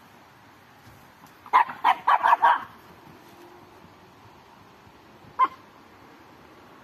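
A dog barking: a quick run of about five barks about a second and a half in, then a single bark about five seconds in.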